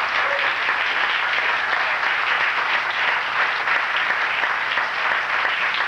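Audience applauding steadily, a dense clatter of many hands.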